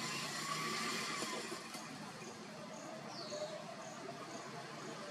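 Faint roadside ambience: vehicle engines running low, with a short falling bird whistle about three seconds in and a high chirp repeating about twice a second through the second half.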